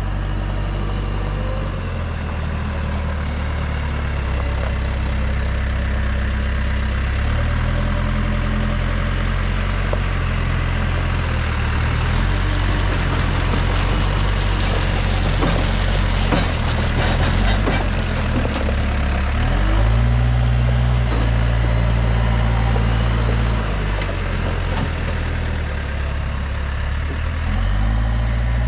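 Diesel engine of heavy earthmoving equipment running and changing speed, rising and falling several times as it works. About twelve seconds in there is a stretch of rattling and clanking that lasts several seconds.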